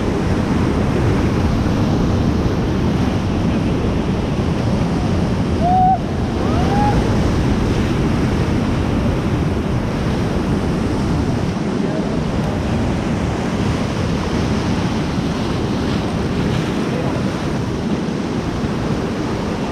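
Rushing whitewater of the Beas river, a loud steady noise of rapids, with wind buffeting the microphone. Two short pitched calls come about six seconds in.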